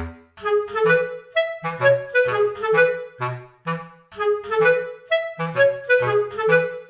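Background music: a bouncy tune of short, detached notes over a bass line.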